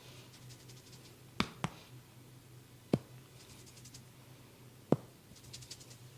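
Hands working over a person in a barber's massage: four sharp snaps, two close together about a second and a half in, then one near three seconds and one near five. Between them come short runs of soft, rapid scratching or crackling, over a steady low hum.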